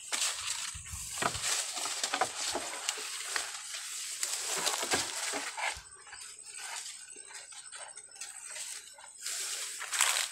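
Leaves and branches rustling and crackling as a long bamboo pole is pushed and worked through the tree's foliage, with many small clicks of the pole against twigs. The rustling is busiest in the first half, eases off, then flares up again near the end.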